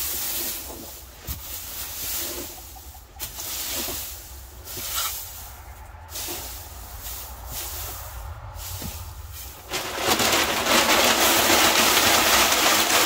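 Uneven scraping and rustling of something being scraped out of a container, then about ten seconds in a sudden loud, steady hiss takes over and stays.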